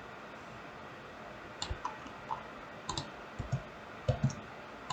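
Faint computer mouse clicks, irregular and scattered, starting about a second and a half in, over quiet room tone.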